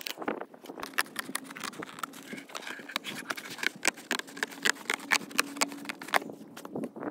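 Corrugated cardboard being cut by hand, a quick irregular run of crunching snips and clicks that stops near the end.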